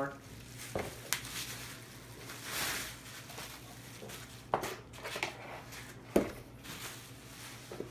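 Plastic bubble wrap rustling and crinkling as it is pulled off an LED light bar, with a few sharp clicks and knocks from handling the bar.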